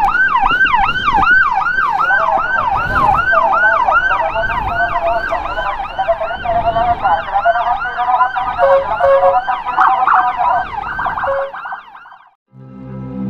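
Electronic emergency siren in a fast yelp, each cycle a quick falling sweep, about three a second; from about halfway a second siren sweeps along out of step with it. Both cut off suddenly near the end, and string music starts.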